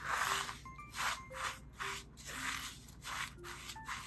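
A kitchen utensil scraping and rubbing in a bowl in repeated strokes, about two a second, with soft background music.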